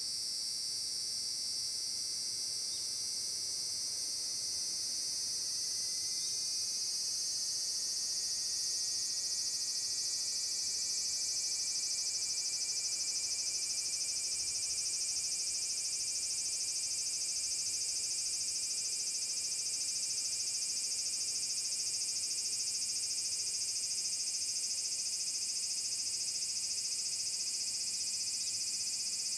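Large brown cicadas (aburazemi) singing in a continuous high-pitched buzzing drone. It swells over a few seconds, starting about six seconds in, and then holds steady and loud.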